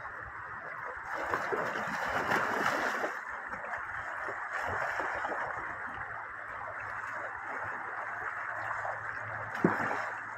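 Shallow river running over stones, with dogs splashing through the water. The splashing is heavier for a couple of seconds about a second in, and there is one sharp, loud splash near the end.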